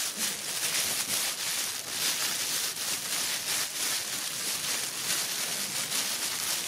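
Scuffing and rustling of baby monkeys wrestling on a woven plastic mat: a dense, irregular run of small scratches and rubs.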